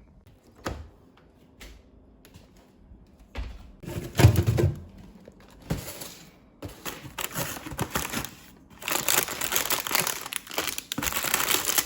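Handling noises: a few light clicks and knocks, one heavier thud about four seconds in, then bouts of crinkling rustle that grow denser in the last few seconds.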